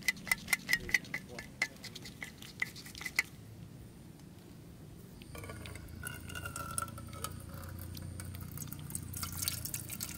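A utensil clinking against a plate about three times a second, each clink with a short ring, for the first three seconds. From about five seconds in, water poured from a plastic bottle into an aluminium camping pot, a steady splashing trickle.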